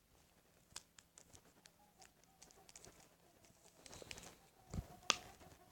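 Small clicks and taps of objects being handled, with a soft thud and a sharp click near the end. A chicken clucks faintly in the background toward the end.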